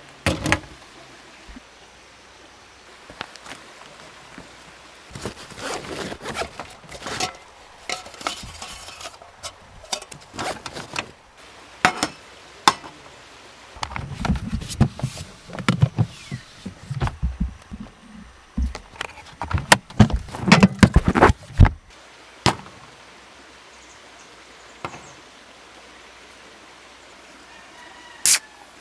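Handling noises: a run of sharp clicks, knocks and rustling, with heavier thuds between about 14 and 22 seconds in, then quiet apart from a single tick.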